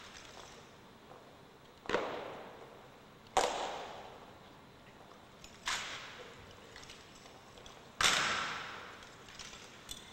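Rifle drill by a drill team: four sharp strikes of rifles being slapped and struck in unison, a couple of seconds apart, with a faint one near the end. Each rings out with a long echo as in a large hall.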